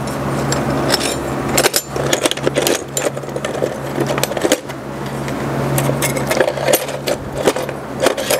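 Metal hand tools and small parts being handled on a workbench: a string of clicks, clinks and scrapes over a steady low hum from the shop.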